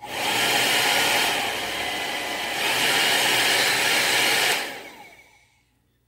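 UNIX UN-A1610 ion hair dryer switched on at its slide switch, its fan and motor running with a steady rushing blow that eases off for about a second and then comes back up. Near the end it is switched off and the fan spins down with a falling whine.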